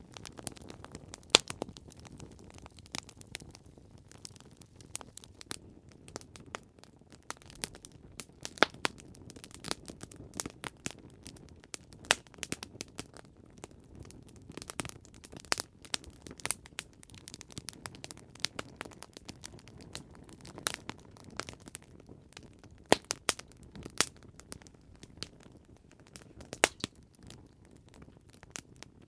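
Campfire crackling: wood burning with irregular sharp pops and snaps over a soft low rumble of flames, a few louder pops standing out.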